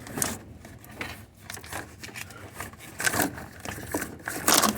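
Handling noises as a dehumidifier and its power cord are moved into position: irregular scraping, rustling and clicks, with a louder clatter near the end.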